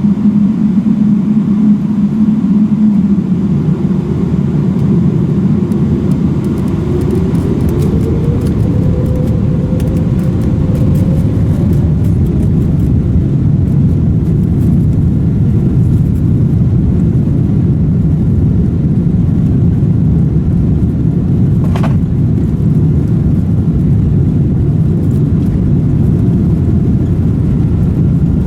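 Boeing 777-300ER's GE90-115B turbofan engines heard from inside the cabin: a loud, steady low rumble, with a tone that rises in pitch over a few seconds and then holds. A single sharp click about 22 seconds in.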